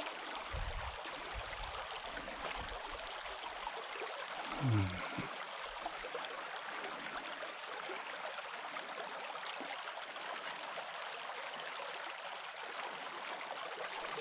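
Shallow mountain creek running over gravel: a steady rush of water. A short low sound with a falling pitch comes about five seconds in.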